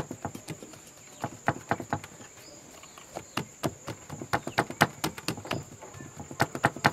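Hands patting and pressing pumpkin dough flat on a floured wooden board: a run of irregular soft slaps and taps, with a short lull about halfway through. A steady high insect trill runs behind it.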